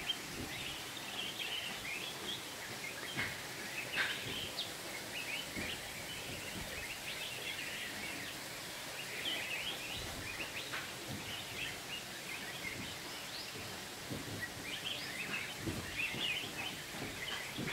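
Outdoor ambience with many small birds chirping busily and overlapping, plus a few faint short knocks.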